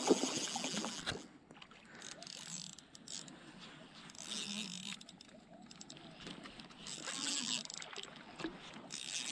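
Fishing reel being cranked to bring in a hooked trout, its rapid clicking coming in spells: once at the start, again about halfway through, and again near the end.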